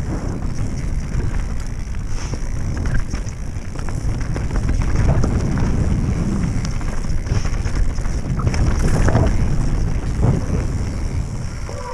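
Wind buffeting the microphone of a mountain bike ride, a steady low rumble, with scattered clicks and rattles from the bike over rough ground.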